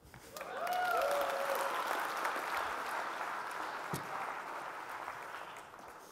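Audience applauding, with a short cheer from a voice or two near the start; the applause swells quickly and then slowly dies away.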